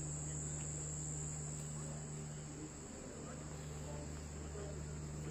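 Insects, crickets by their sound, chirring in a steady high-pitched chorus over a low steady hum.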